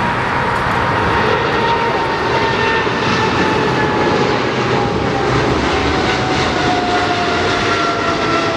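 Boeing 777 freighter's two GE90 turbofans at take-off thrust as it lifts off and climbs away: a loud, steady jet rush with a thin whine that slowly falls in pitch.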